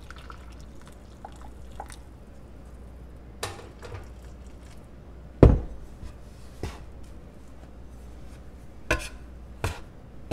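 Metal bench scraper knocking and scraping on the countertop as it cuts hot water into a mound of flour and lard, several separate knocks spread out. The loudest, a heavier thump about halfway through, comes as the glass measuring cup is set down on the counter.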